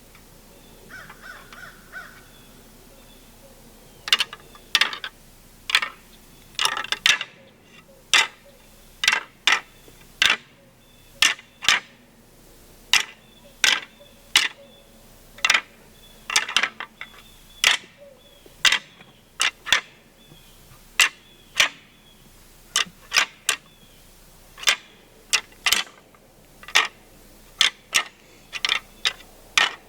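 A long series of short, sharp cracks or crunches, irregularly spaced at roughly one a second, some coming in quick pairs.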